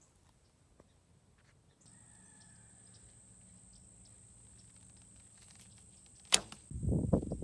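A 40-pound Monarq Korean traditional bow is drawn and shot, the string releasing with a single sharp snap about six seconds in. Irregular low rumbles follow to the end, and a faint steady high whine runs underneath from about two seconds in.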